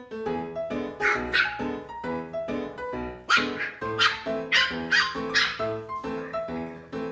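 Boston terrier puppies yapping in short sharp barks, in bursts of two or three, at their reflections in a mirror, over ragtime piano music.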